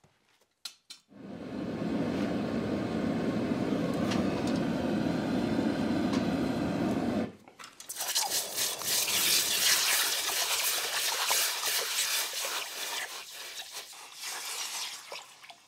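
Gas forge burners running with a steady low rush for about six seconds. Then a red-hot Atlantic 33 (Flutagon) tool is quenched in a bucket of water, hissing and sizzling as the working end is hardened, the hiss dying away near the end.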